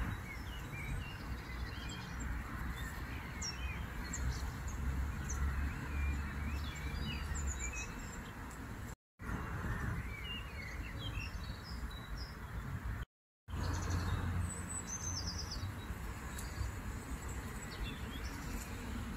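Small birds chirping and singing in many short, high calls over a steady outdoor hiss and low rumble. The sound cuts out for a moment twice.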